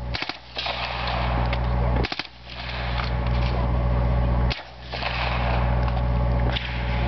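Heckler & Koch MP5 submachine gun fired on full auto in short bursts, the first near the start and then about every two seconds. A steady low rumble fills the gaps between bursts.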